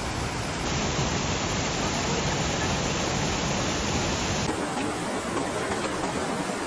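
Steady hiss of rushing water, its tone shifting slightly about a second in and again past four seconds.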